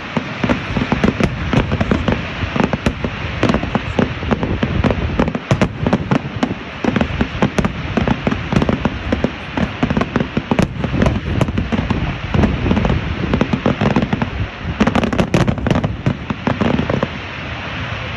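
Firework display: a dense barrage of aerial shell bursts and crackle, many bangs a second, thinning out and dying away near the end.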